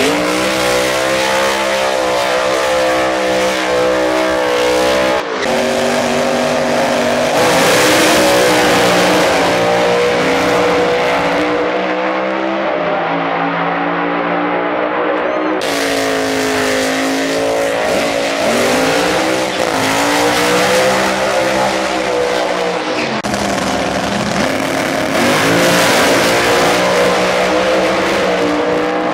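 Supercharged Pro Mod doorslammer drag-race engines running at high revs through a burnout and full-throttle passes, the pitch rising and falling. The sound changes abruptly three times as one run cuts to another.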